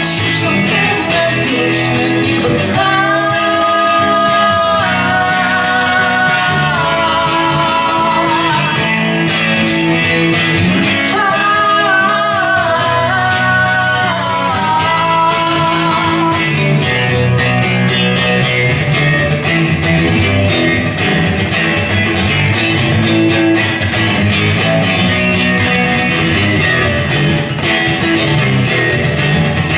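A song played on guitars with a singing voice. The voice carries the first half, and guitars carry an instrumental stretch after about halfway.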